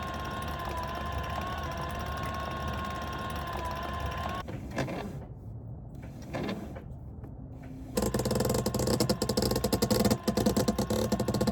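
Sailboat winch hoisting a crew member up the mast: a steady humming tone for about four seconds, then after a quieter gap a louder run of rapid ratchet clicking as the winch turns.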